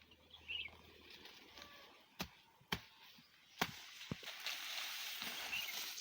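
Napier grass being cut: four sharp chopping strokes in the middle, over rustling of the stalks and leaves that grows louder toward the end.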